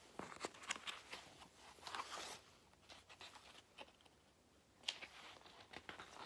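Paper rustles and light clicks from a picture book being handled and its pages turned, in two short flurries, the second about five seconds in.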